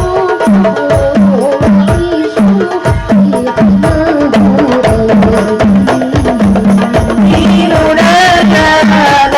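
Hadroh-style sholawat music: frame drums beat a steady rhythm over a deep, pitched bass drum, under a wavering melody line. A voice starts singing about seven and a half seconds in.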